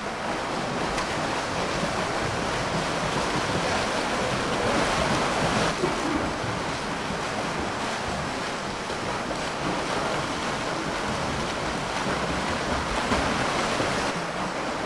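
Several swimmers splashing as they swim lengths of a pool: a steady wash of water noise.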